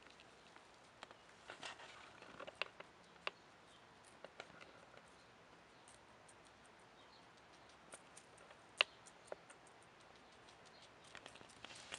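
Guinea pig munching fresh vegetables: faint, irregular crisp crunching clicks with a few short rustles, and one sharper click about nine seconds in.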